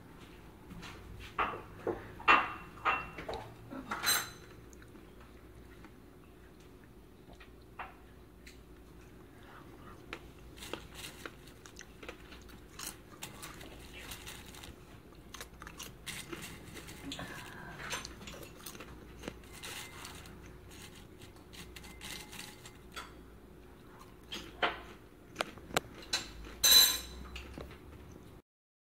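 Wooden chopsticks working through popcorn in a glass bowl: scattered clicks of the sticks against the glass and light crackle of the popped kernels. The clicks come in sharp clusters in the first few seconds and again near the end, with sparser crackling between.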